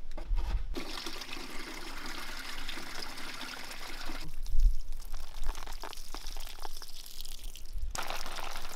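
Water running and splashing as a plastic watering can is filled at a water tote's tap and poured over potted plants, with a dull bump about halfway through.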